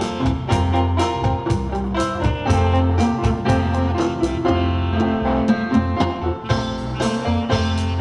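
Live instrumental combo band playing an upbeat jazzy pop tune: keyboard, electric guitar and bass over a steady drum-kit beat.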